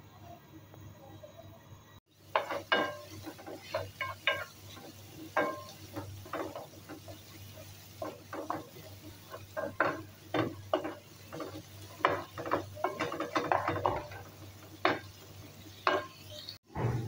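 A wooden spoon stirring and scraping chopped onion and garlic frying in a non-stick pan. It starts about two seconds in, with irregular knocks and scrapes of the spoon against the pan over a faint sizzle.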